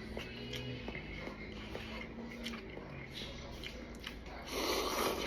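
Mouth sounds of a person eating instant cup noodles: small chewing clicks, with a louder noisy stretch near the end. A low steady hum runs through the first half.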